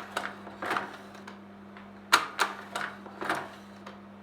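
Braun Paximat slide projector's slide changer working: a run of sharp mechanical clicks and clacks as the magazine moves a slide out and in, over the steady low hum of the running projector.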